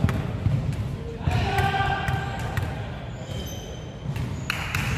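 A basketball bouncing a few separate times on a wooden sports-hall floor as it comes back to a free-throw shooter.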